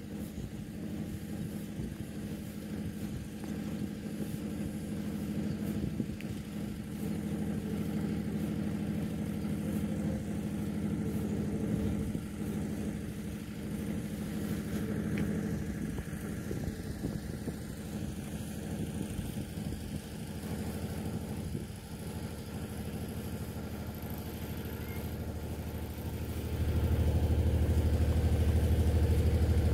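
An engine running steadily at an unchanging pitch, growing louder and deeper near the end.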